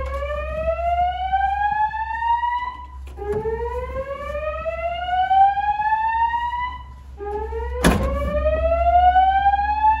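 Fire alarm speakers (System Sensor SPSR/SR speaker strobes) sounding a rising whoop evacuation tone between voice announcements: three slow upward sweeps, each about three and a half seconds long. A sharp knock comes about eight seconds in.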